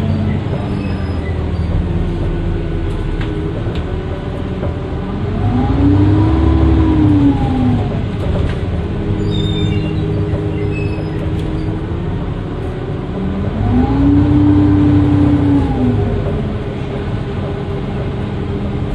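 Dennis Trident II double-decker bus's diesel engine and turbo running under way. Twice the bus accelerates and a whining tone rises then falls as the engine gets louder, settling back to a steady drone in between.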